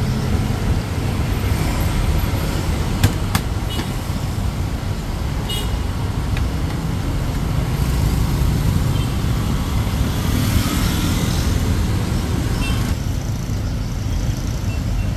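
Steady traffic rumble of engines going by on a city street, with two sharp clicks about three seconds in.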